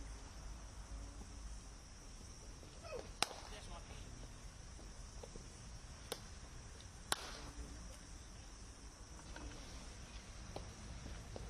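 Cricket bats striking balls in the practice nets: three sharp cracks, about three seconds in, about six seconds in and a second after that. Behind them runs a steady high-pitched hum.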